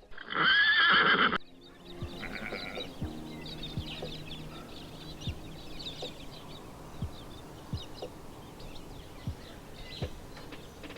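Pony whinnying: one loud call of about a second and a half at the start, then quieter low sounds with soft knocks about once a second.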